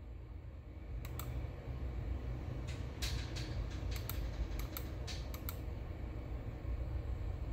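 Irregular run of about a dozen sharp clicks, like typing on a keyboard, between about one and five and a half seconds in, over a low steady rumble.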